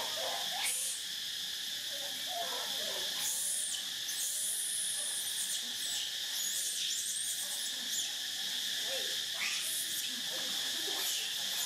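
Steady high-pitched chirring of insects, with a few short bursts of hiss.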